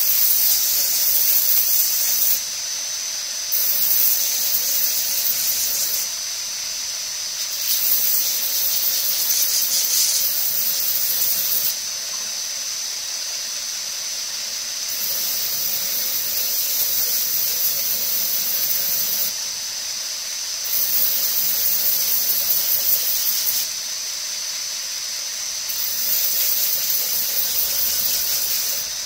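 Belt grinder running steadily with a constant high whine, and a louder hissing grind each time the G10 knife scales are pressed against the belt over the small wheel: about six passes of two to four seconds each, with short lifts between.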